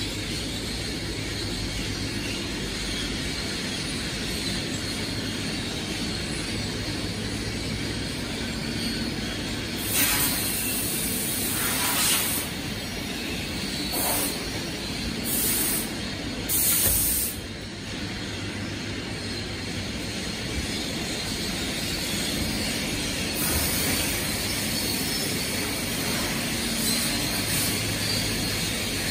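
Tile glazing line conveyors running with a steady machine hum. Several short bursts of hissing come about a third of the way in, and a longer hiss starts near the end.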